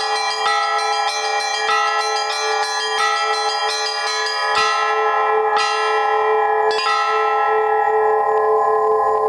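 Russian-style church bells being rung, struck about twice a second and then slowing to three widely spaced strokes before being left to ring out. The slowing tempo marks the close of the peal, before its final chords.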